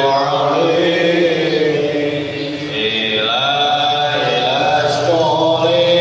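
Male devotional chanting in a mosque, slow and melodic with long held notes and no break.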